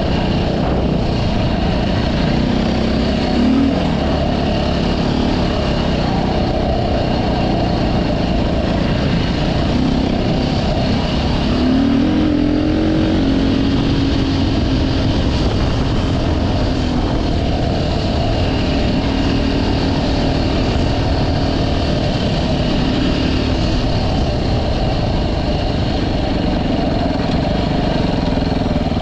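Engine of a moving vehicle running continuously, its pitch climbing briefly about three seconds in and again about twelve seconds in, then holding steady for a while, over a constant rush of noise.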